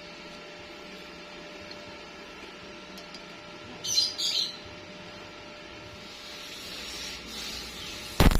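Steady background hum, with two short high chirps about four seconds in. Near the end a stick-welding arc is struck and starts crackling loudly.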